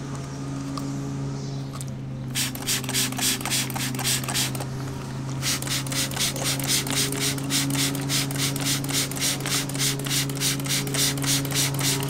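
A trigger spray bottle of water squeezed over and over, about four squirts a second, spraying down a motorcycle drive chain. The squirting starts about two seconds in and pauses briefly near the middle. A steady low hum runs underneath.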